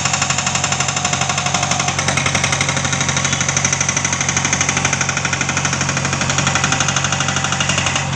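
Hydraulic rock breaker hammer on a JCB backhoe excavator pounding rock in a rapid, steady rhythm of about seven blows a second, with the machine's diesel engine running underneath. The hammering stops right at the end, leaving the engine running.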